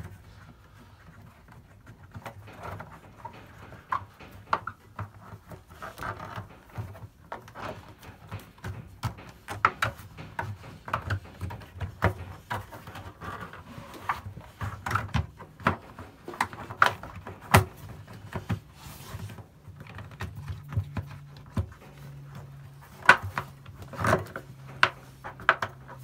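Irregular clicks, light knocks and rubbing as a metal spring retaining band is stretched and worked into the groove of a washing machine's rubber door seal.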